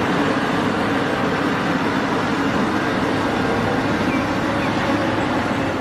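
Cat 6015B hydraulic mining excavator running steadily, a constant heavy diesel engine drone with a noisy hiss over it.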